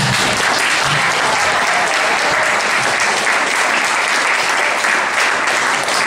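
An audience applauding, a steady dense clapping.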